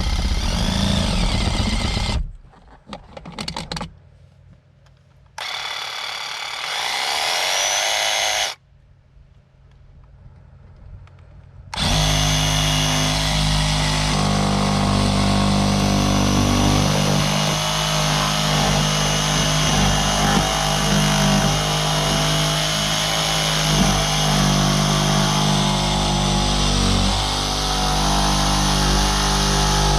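Handheld power tool running while cutting out a larger speaker hole in a boat panel. It stops and restarts twice in the first twelve seconds, once spinning up with a rising whine, then runs steadily for the rest.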